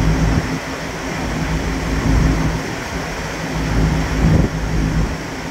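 Ferry's machinery giving a steady low hum, under a heavy rumble of wind buffeting the microphone.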